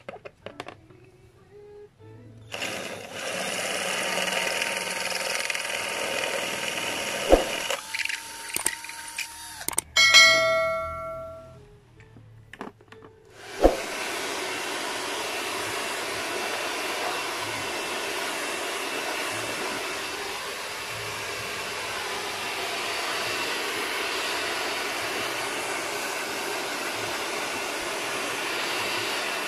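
Hair dryer blowing steadily, used to blow dust out of an opened motorcycle headlight housing; it comes on after a sharp knock about halfway in and runs evenly from then on. Before it, a shorter steady whirring and a brief loud burst.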